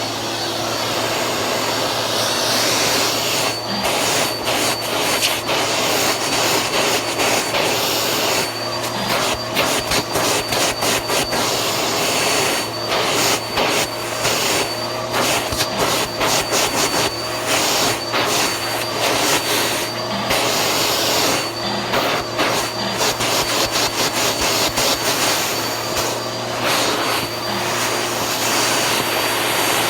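Vacuum cleaner running steadily with a high motor whine, broken by frequent short irregular clicks and crackles.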